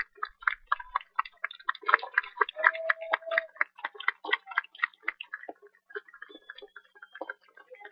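Crowd applauding, the individual hand claps distinct and rapid, thinning out over the last two or three seconds.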